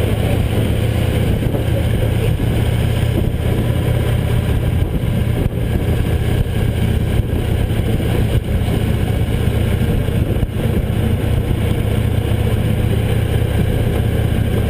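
Victory V-twin motorcycle engine running steadily while riding, a constant low drone under an even rush of wind and road noise.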